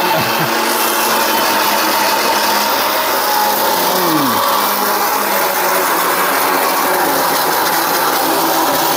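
Electric mixer grinder running steadily, its steel dry jar grinding hot roasted spices into masala powder. The motor's whine dips briefly in pitch near the start and again about four seconds in, while the unit is tipped over by hand.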